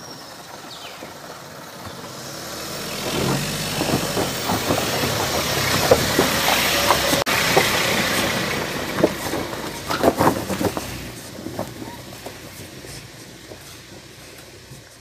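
Mahindra Bolero SUV driving up a rough, rocky dirt track and passing close by. Its engine grows louder to a peak about halfway, then fades. Its tyres knock over stones and a log.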